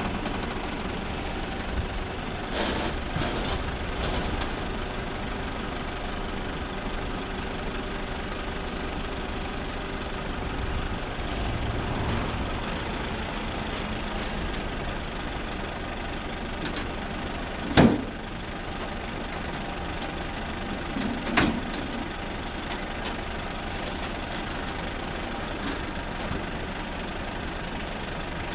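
Diesel engine of a Nissan NT400 truck-mounted boom lift idling steadily. A sharp knock about 18 s in and a smaller double knock about 21 s in.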